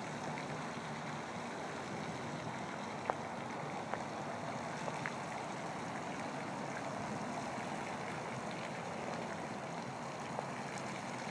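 Steady rushing splash of a pond's spray fountain, with a few faint clicks.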